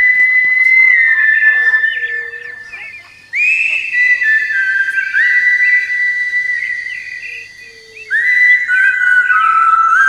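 Clear, high whistling in three long phrases. Each starts with a quick upward slide, then holds a steady note that steps down in pitch. Faint short chirps sound behind it.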